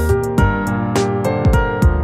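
Background music: an instrumental track with held keyboard-like notes over a steady beat.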